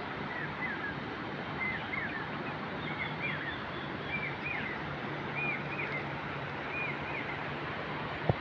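Riverside ambience: a steady rush of outdoor noise with a low steady hum under it, while a bird repeats a short, hooked chirping call about once a second. A single sharp click comes just before the end.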